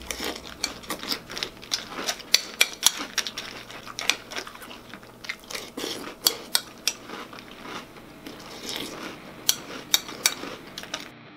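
Metal spoon clinking against a bowl and crunchy Cookie Crisp cereal in almond milk being chewed, in quick, irregular clicks and crunches. It stops suddenly near the end.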